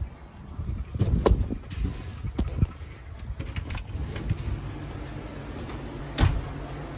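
Knocks, footfalls and phone-handling rustle as a person climbs down from a boat's deck into its cabin, with a loud thump about six seconds in. A steady low hum comes in about four seconds in.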